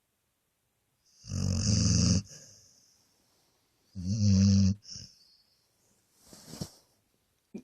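Beagle snoring in its sleep: two loud snores about three seconds apart, each about a second long, then a fainter breath near the end.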